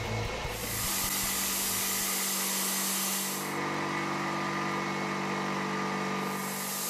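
An indexable end mill on a CNC machining centre cutting S55C carbon steel: a steady machining hum with a few steady tones under a high hiss, which drops away a little past the middle and returns near the end. Background music fades out in the first two seconds.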